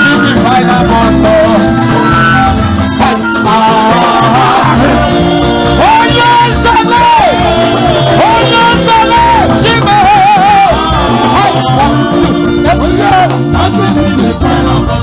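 Loud upbeat music with a voice singing a melody over a steady, driving drum beat.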